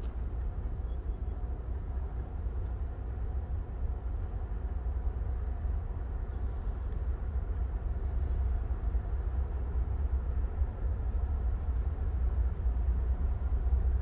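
Low rumble of an approaching diesel-led freight train, slowly growing louder, with a faint, evenly pulsing high whine above it.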